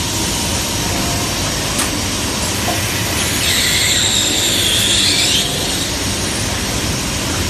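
Automatic transfer machine for brass fittings running: a loud, steady machining noise, with a high-pitched screech for about two seconds in the middle. A few light clinks of brass parts being handled.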